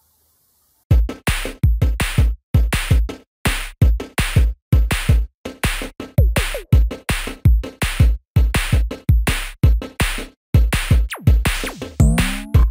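Background electronic music with a fast, steady drum-machine beat and heavy bass kicks, starting about a second in after a brief silence.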